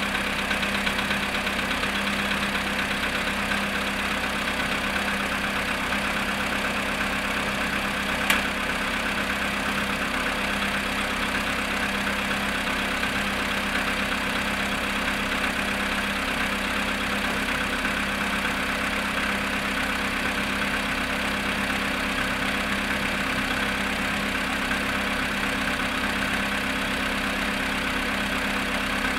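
VW Polo Sedan engine idling steadily after a cold start at −7.5 °C, having stood for 14 hours, with the engine knock that the owner is recording. There is a single sharp click about 8 seconds in.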